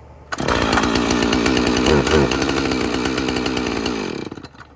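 Husqvarna 450 Rancher two-stroke chainsaw, already warm, drop-started: it fires at once and runs loud, with a brief rev about two seconds in. It is then shut off and winds down near the end.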